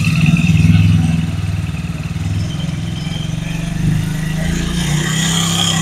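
Honda Pridor motorcycle's single-cylinder four-stroke engine running steadily in gear while held back lightly with the brake, a little louder in the first second. The clutch-box gear noise is no longer heard: the worn primary gear has been turned around to run on its unworn side.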